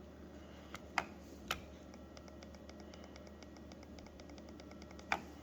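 A few light, sharp clicks: one about a second in, another half a second later, and one near the end. Between them runs a faint, fast, even ticking, several ticks a second, over a steady low hum.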